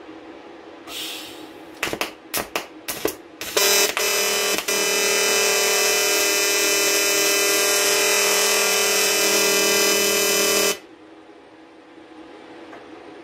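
AC TIG welding arc on aluminium: after a brief hiss, a few short stuttering arc strikes about two seconds in, then a steady loud buzzing arc for about seven seconds that cuts off suddenly.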